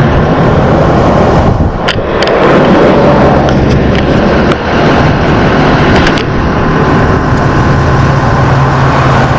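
Vehicle engine running with a low steady hum under a loud rushing noise, with a few sharp clicks about two seconds and six seconds in.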